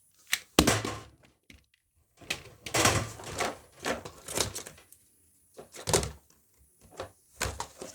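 Fidget toys being handled and moved about: a string of irregular knocks, thuds and rustling scrapes.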